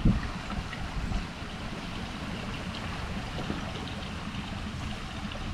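Water lapping and trickling steadily, with a few small splashes in the first second.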